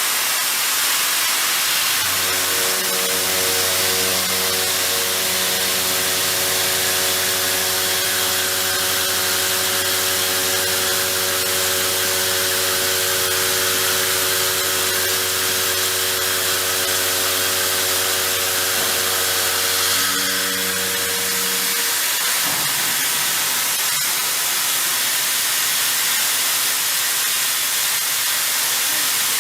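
SDV-HLA machining centre doing heavy milling: a steady, loud hiss throughout, with a hum of several steady tones that starts about two seconds in and stops about twenty seconds later.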